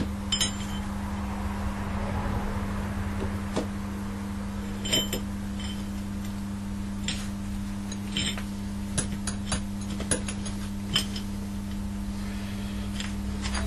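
Steel timing chain and timing gears clinking and rattling as they are handled and the chain is wrapped around the sprockets: a dozen or so sharp metallic clinks at uneven intervals, the loudest about five and eight seconds in, over a steady low hum.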